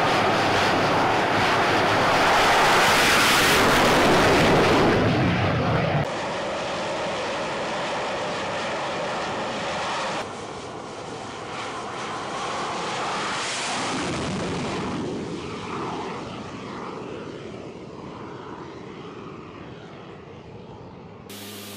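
Jet engine noise from carrier aircraft, an X-47B drone and an F/A-18 Hornet, running at full power for catapult launches off an aircraft carrier deck, heard across several edited shots. The noise is loudest for the first six seconds, drops abruptly about six and ten seconds in, and fades toward the end as an aircraft climbs away.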